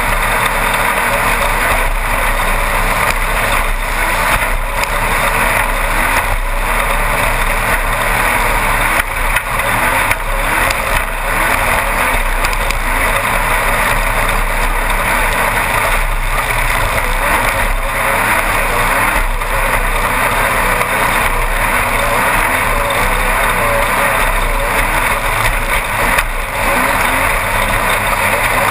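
Class 1-1600 desert race buggy at speed, heard from inside the car. Its air-cooled VW 1600 flat-four runs hard under a loud, steady din, with frequent short knocks and jolts from the rough ground.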